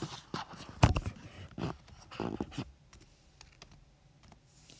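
Keystrokes typing on an iPad: a run of irregular, quick taps over the first two and a half seconds.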